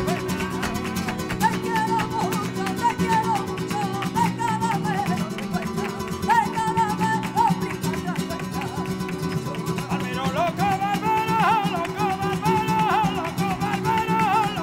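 Live flamenco music: two acoustic flamenco guitars strumming and picking, an ornamented sung line bending up and down, and rhythmic hand-clapping (palmas).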